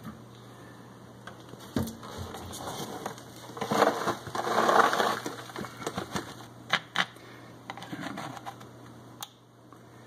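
Powdered dishwasher detergent poured from a cardboard box into a dishwasher door's detergent dispenser cup: a gritty hiss of granules for about a second and a half midway, the loudest part. Around it, a few sharp clicks and taps of the box and the plastic dispenser.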